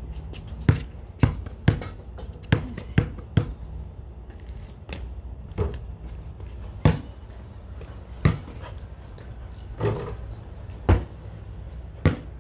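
Basketball bouncing on a concrete court: a quick run of dribbles about half a second apart near the start, then single hard knocks every second or so as shots hit the hoop and the ball comes down.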